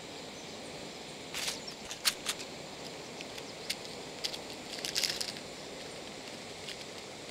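Small plastic tackle case being handled, its compartment lids clicking and snapping open as the contents are picked through: a scatter of sharp clicks between about one and five seconds in, the densest cluster near the end, over a steady outdoor hiss.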